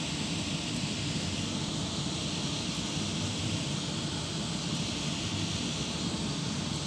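Thai red curry with coconut milk simmering in a non-stick pan on an induction hob: a steady bubbling, sizzling hiss.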